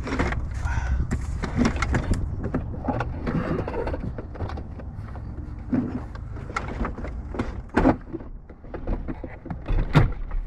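Hard plastic heater box and dash parts of a 1995 Jeep Cherokee XJ being handled and slid loose: irregular clicks, knocks and scraping, with two louder knocks near the end, over a low steady hum.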